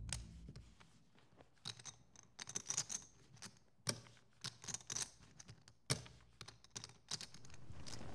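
Poker chips and cards being handled at the table: a scattered string of faint, sharp clicks and clacks, coming in small irregular clusters.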